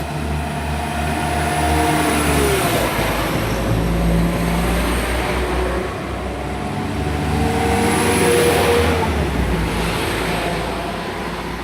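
Two coupled Class 172 Turbostar diesel multiple units pulling away from a station, their underfloor diesel engines working hard, with the engine note rising and falling as they accelerate. The sound swells to its loudest near the end and then starts to fade.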